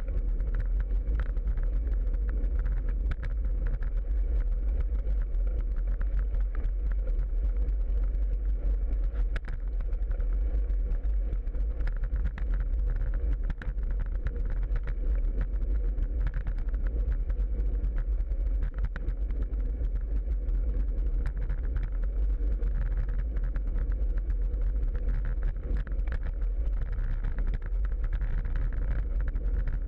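Wind rushing over a bicycle-mounted camera's microphone while riding on asphalt, a steady low rumble with tyre and road noise, a faint steady hum, and frequent small clicks and rattles from bumps.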